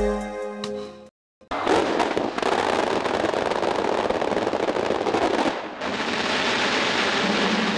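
A brief passage of synthesized music cuts off about a second in. After a short silence, the dense, continuous crackling and popping of a fireworks display starts abruptly and keeps on, dipping briefly about two-thirds of the way through.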